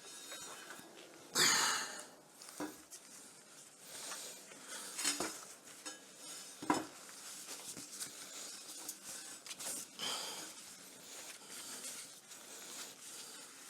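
Metal clamps and tools being handled: clinks, scrapes and knocks of steel on metal, with a longer loud scrape about a second and a half in and several sharper knocks after.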